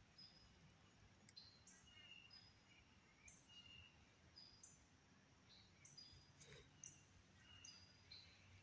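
Faint birdsong: short high chirps from several birds at different pitches, about one a second, over a low steady hum.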